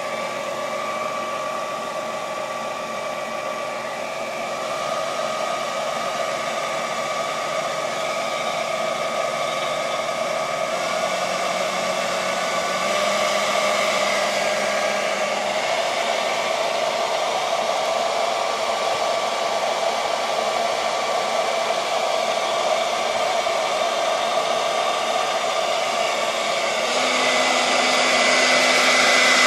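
Electric fan of a model turbine fire-fighting vehicle running at full blast, driving a water mist: a steady whirring rush of air with a constant whine. It grows gradually louder, with a further rise near the end.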